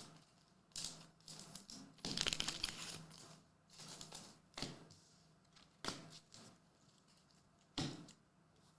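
Faint crinkling and rustling of trading-card pack wrappers and cards being handled, with a longer rustle about two seconds in and a few sharp clicks later.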